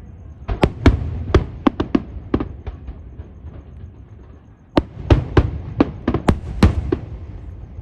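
Aerial fireworks bursting: two quick volleys of sharp bangs, the first in the opening seconds and the second starting about five seconds in, over a low rumble.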